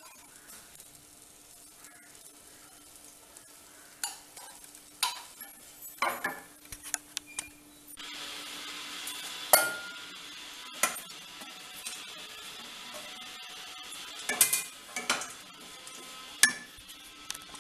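A wooden spatula stirs and scrapes a dry crumb mixture of bread crumbs and coconut in a non-stick pan, with sharp knocks of the spatula against the pan. A steady hiss joins from about eight seconds in.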